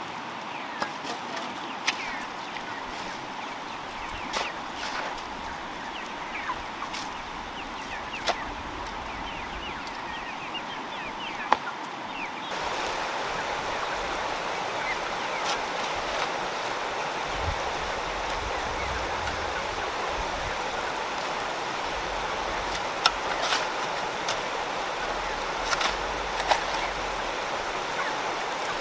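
Steady rush of a fast-flowing river, louder after about twelve seconds, with chickens clucking and scattered sharp knocks and taps.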